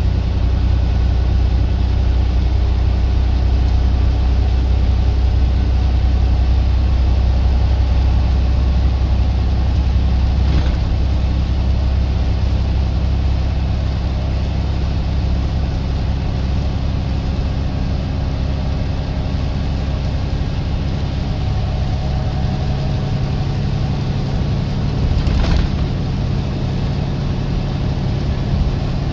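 Truck engine running with steady road noise while driving, a deep rumble that eases somewhat about ten seconds in. Two brief knocks come about fifteen seconds apart.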